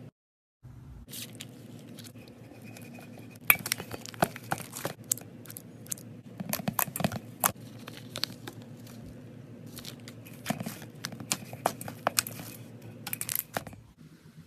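Slime being squeezed and stretched by hand, giving irregular sticky crackling and popping clicks that come in busy clusters, after a brief silent gap right at the start.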